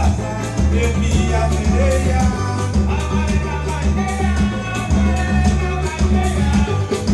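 Upbeat band music with a heavy, pulsing bass line and steady percussion, in a passage without words.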